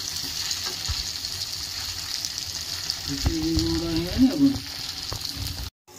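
Urad-dal bara deep-frying in hot oil in an aluminium kadai: a steady sizzle, with a perforated metal skimmer stirring through the oil. A voice is heard faintly under the sizzle about three seconds in, and the sound cuts out for a moment just before the end.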